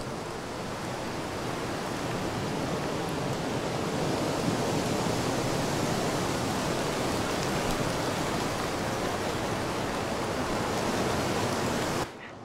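A loud, steady rushing noise with no distinct events. It starts abruptly, swells slightly over the first few seconds, and cuts off suddenly near the end.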